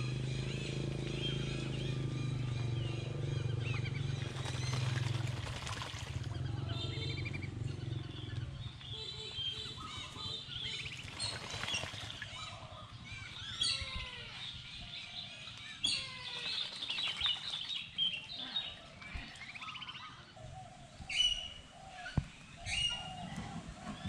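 Several birds chirping and calling in a zoo aviary, short overlapping chirps and quick whistled glides. A low steady hum underlies the first eight seconds or so, then fades out.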